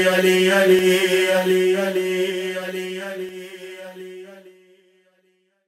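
Devotional manqabat fading out at its close: a held low drone under a rhythmic chanted backing fades steadily to silence shortly before five seconds in.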